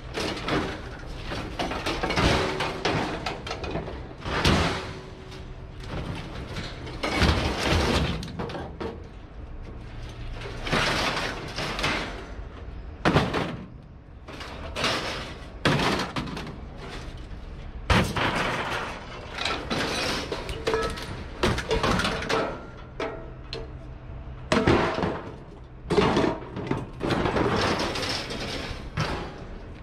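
Scrap metal being unloaded: pieces thrown down one after another, a loud crash or clatter every second or two with scraping between them.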